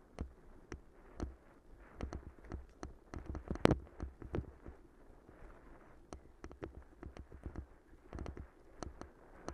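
Bicycle rattling and knocking as it rides over a rough dirt and leaf-strewn path, with irregular clatters over a low rumble, the loudest about three and a half seconds in.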